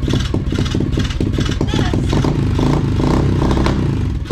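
Small engine of a brand-new pit bike running on its first start, still being run in, with a fast, even firing beat.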